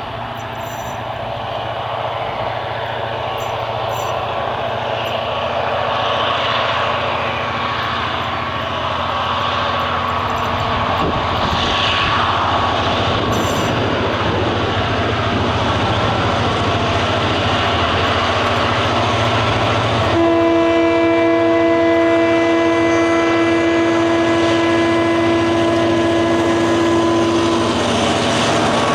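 EMD G26CW-2 diesel locomotive climbing a grade under power, its 16-cylinder EMD 645 two-stroke diesel running with wheel and flange noise and growing steadily louder as it approaches. About twenty seconds in, its horn sounds one long chord for about seven seconds.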